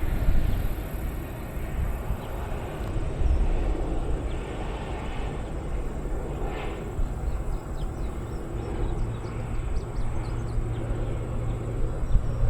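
Crop-dusting airplane's engine running overhead at a distance, under an uneven low rumble; a steadier low hum sets in about two-thirds of the way through.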